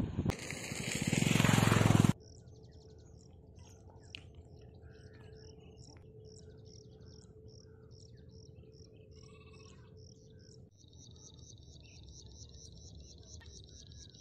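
A loud rush of noise swells for about two seconds and cuts off abruptly. Then insects chirp in steady high pulses about twice a second over flooded fields, with a few bird calls, and a faster high trill joins near the end.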